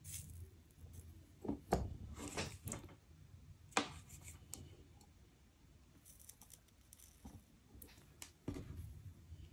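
Quiet workbench handling: a few faint clicks and light scrapes as a soldering iron tip and a thin wire are worked against a model locomotive's motor and frame while tinning the contacts. The sharpest click comes a little under four seconds in.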